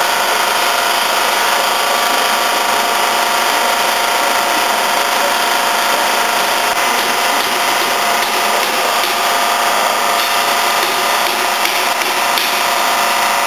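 Electric gear motor driving the agitator of a 300-litre screw mixer for dry bulk products, running at a steady speed with an even, unchanging whine.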